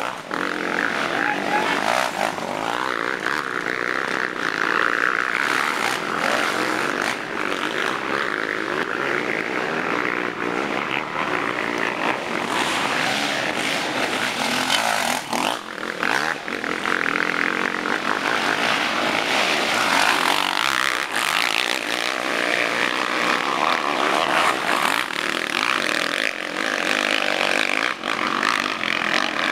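Motocross bikes racing past on a dirt track, several engines revving hard, their pitch rising and falling continuously as riders accelerate and back off through the corners and climbs.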